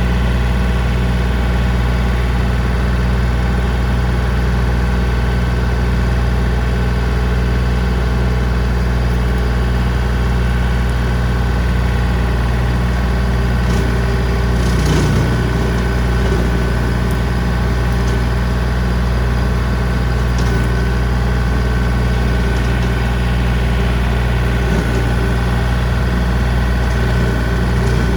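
John Deere 3025D compact tractor's three-cylinder diesel running steadily at working speed while it drives a brush hog rotary cutter. About halfway through there is a brief knock with a short change in the engine's pitch.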